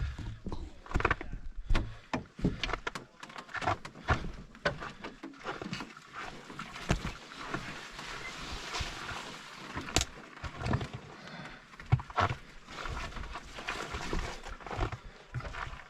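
Branches and brush rustling and snapping, with irregular knocks and several heavier thumps, as people push through dense bush and over fallen logs.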